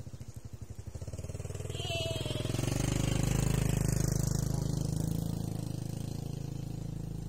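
A small engine passing by with a fast, even pulsing beat: it grows louder to a peak about three to four seconds in, then fades.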